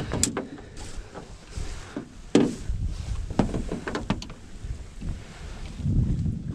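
Scattered sharp knocks and thumps of a catfish and gear being handled against the floor and bench of a small boat, the loudest about two and a half seconds in. Wind rumbles on the microphone near the end.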